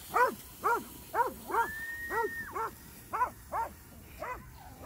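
A dog barking over and over, about two short barks a second, with one held high-pitched note running under the barks about two seconds in.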